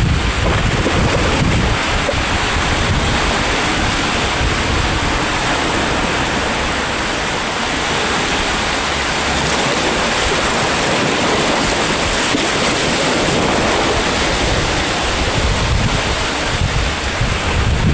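Sea waves washing onto the shore in a continuous hiss, with wind buffeting the microphone in low rumbles near the start and again near the end.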